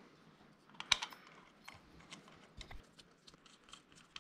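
Scattered light clicks and taps of small bolts and parts being handled against an NP435 transmission case. The sharpest click comes about a second in, with a couple of soft knocks a little past the middle.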